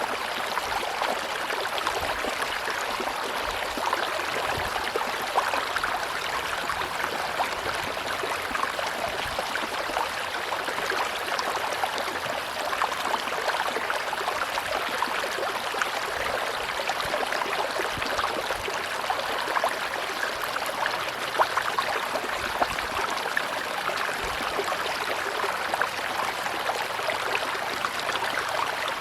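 River water running steadily over rocks, a continuous rushing and babbling with small splashes here and there.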